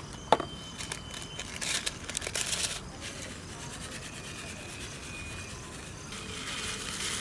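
Small dry-yeast sachet crinkling and rustling in the hands as it is torn open, a run of scratchy crackles over the first few seconds that settles into quieter rubbing.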